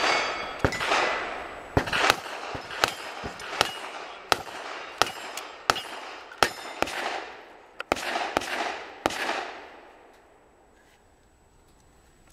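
A rapid string of about twenty gunshots, each under a second after the last, with steel targets ringing as they are hit. The shooting stops about nine seconds in.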